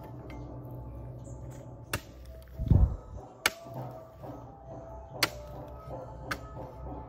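A few sharp knocks spread through, with one heavier low thump about two and a half seconds in, over a steady low hum.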